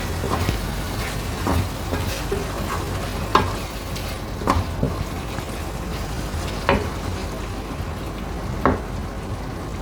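Food sizzling in a frying pan while it is stirred, with a utensil knocking against the pan about five times.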